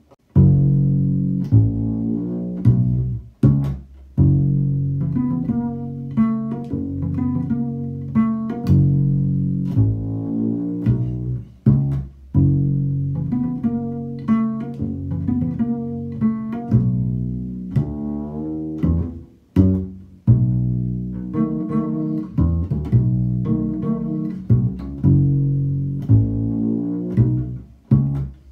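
Solo double bass played pizzicato: a running line of finger-plucked notes, each with a sharp attack that rings and fades. The playing stops for a moment now and then.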